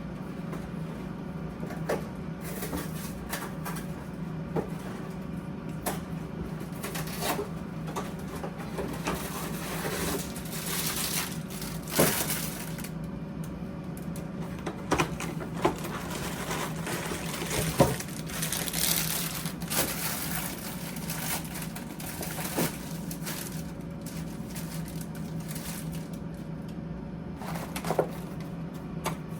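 Crinkling and crunching of plastic and cardboard grocery packaging as frozen food is handled and stacked away, with scattered irregular knocks and clunks, the sharpest about twelve and eighteen seconds in, over a steady low hum.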